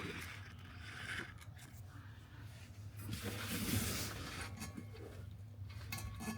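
Faint handling noises as the shifter arm is pried out of its mount under a BMW E60: a few small clicks and a short scraping rasp about three seconds in, over a steady low hum.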